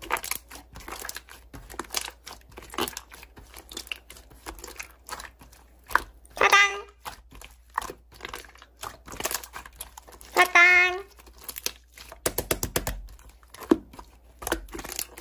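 Slime being squeezed, pressed and stretched by hands, making many small crackling and popping clicks, with a quick run of pops later on. Two short pitched blips cut in, about halfway through and again about two-thirds through.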